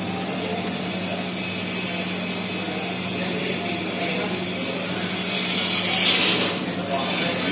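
Laboratory stability chamber running with a steady machine hum while its cooling is on. A faint high whine comes in about halfway through, and a brief rush of noise near the end is the loudest moment.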